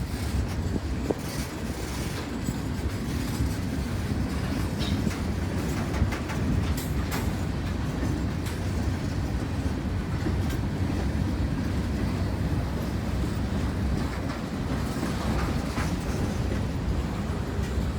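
Norfolk Southern freight train rolling past: a steady low rumble of steel wheels on rail, with scattered clicks and clacks throughout.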